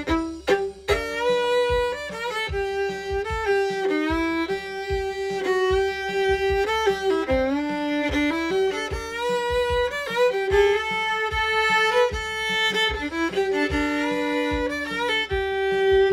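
Fiddle playing a bluegrass-style line in G, bowed notes with slides into some notes and stretches of two-note double stops. A steady drum-machine beat plays underneath.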